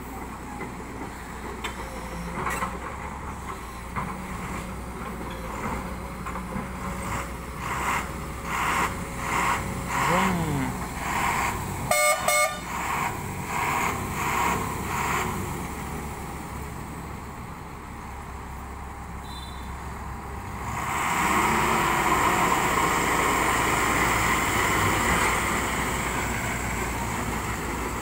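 Diesel engines of a heavily loaded multi-axle truck and a JCB excavator labour as the excavator pushes the stuck truck up a steep dirt slope. A horn sounds briefly about twelve seconds in, and the engine noise gets much louder for the last third as the truck pulls up the climb.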